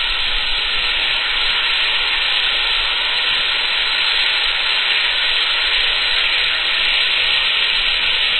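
Cola reacting with baking soda in a plastic bottle, gas and liquid forcing out through the cap in thin jets with a loud, steady hiss.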